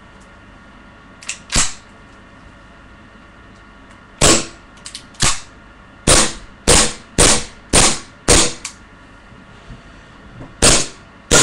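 CZ75 gas blowback airsoft pistol firing about ten sharp shots at an uneven pace, coming about two a second in the middle, with faint clicks between shots.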